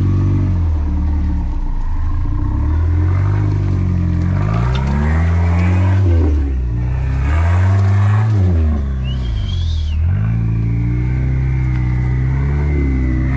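Off-road rock crawler's engine revving up and falling back over and over as it is driven up onto a rock. A brief high-pitched squeal comes about nine seconds in.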